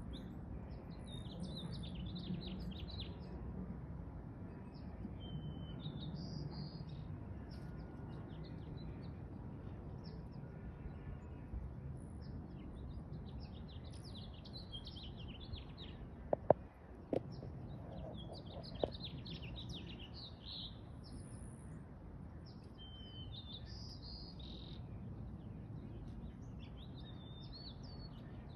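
Small birds chirping and singing in short repeated phrases over a steady low background noise. About halfway through, three or four sharp clicks stand out as the loudest sounds.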